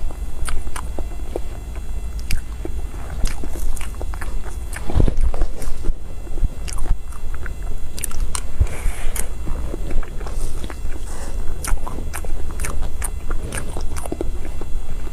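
A person biting and chewing spoonfuls of soft cream-filled mousse cake, with many small wet mouth clicks and smacks.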